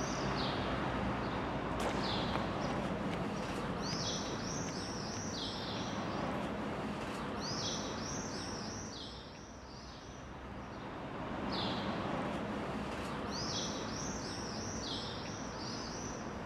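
Small birds chirping in runs of quick, falling high chirps, three main runs over the few seconds, over a steady hum of street noise.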